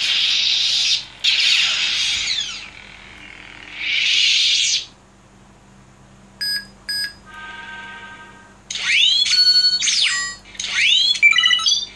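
Lightsaber sound board playing its effects over a low steady hum. Loud swing or clash noise bursts fill the first few seconds and come again briefly. After a lull there are two short beeps and a held tone, then sweeping electronic tones rise and fall near the end.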